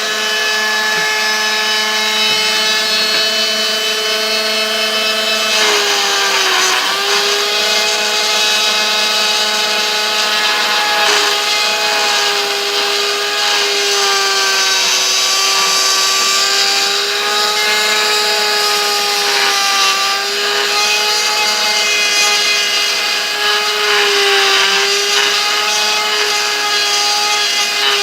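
High-speed power tool with a cutting bit running steadily as it cuts holes in a sword handle. Its whine dips slightly in pitch each time the bit bites, most clearly about six seconds in.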